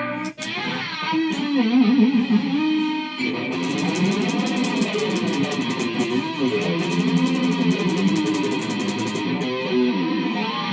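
A continuous screech of several pitched tones that slide and waver up and down, with a fast ticking running through the middle.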